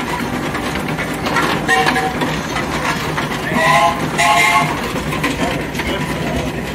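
Steam traction engine's steam whistle blowing two short chord toots a little past the middle, with a brief, fainter toot earlier, over the steady clatter of the engine's running gear.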